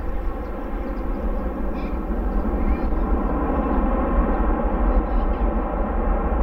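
Jet engines of a Boeing 787-8 airliner during its landing rollout: a steady rumble with a deep low end that slowly grows louder, with a few faint high chirps over it.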